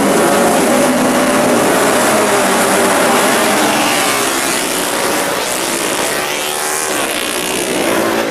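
A pack of classic racing motorcycles revving together at the start of a race and pulling away. Several engines can be heard at once, their pitch rising and falling.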